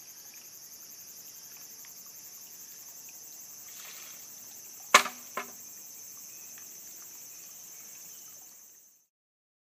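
Shishi-odoshi bamboo tube tipping and striking its stone with one sharp knock about halfway through, followed by a lighter second knock as it bounces back. Behind it runs a steady high-pitched insect chorus, which cuts off near the end.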